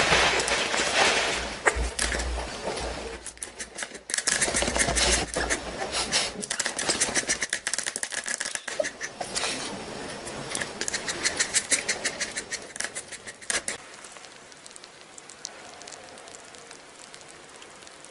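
A small white puppy's claws tapping and scratching on a glass tabletop in quick, irregular clicks, busiest in the middle and dying away about three-quarters of the way through.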